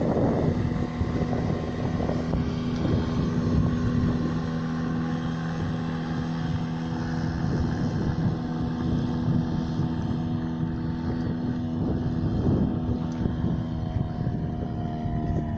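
Yamaha 5 hp outboard motor running steadily at high throttle, driving an inflatable boat on plane, its pitch dipping slightly near the end. Wind buffets the microphone.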